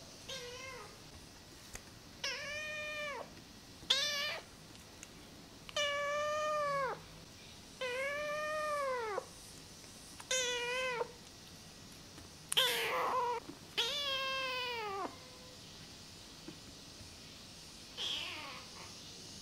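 Young kitten meowing over and over: about nine meows a second or two apart, each rising then falling in pitch, the longer ones drawn out to about a second, with a pause of a few seconds before the last.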